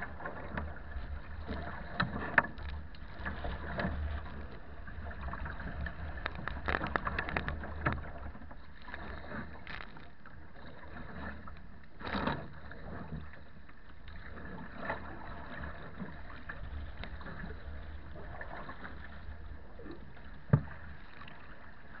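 Strong wind rumbling on the microphone over choppy water splashing against a sea kayak's bow as it is paddled through rough water. A few sharp knocks and splashes stand out, with a cluster about a third of the way in and a single sharp hit near the end.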